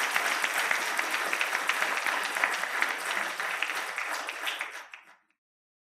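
Audience applauding, a dense patter of many hands clapping that fades out about five seconds in.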